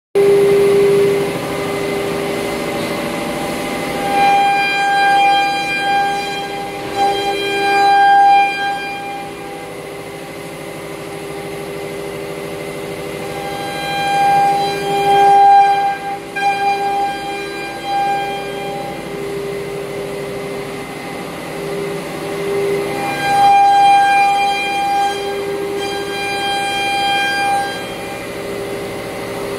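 CNC wood router spindle running at 18,000 rpm and cutting particleboard: a steady whine, with a louder, higher-pitched whine joining in three stretches of a few seconds each.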